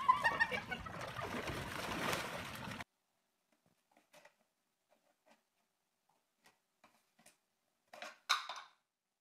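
A cat pawing at the red plastic lid of a kibble container: a few faint taps, then a louder burst of tapping and scraping about eight seconds in. Before that, for about the first three seconds, there is outdoor wind and water noise with a brief voice, which stops abruptly.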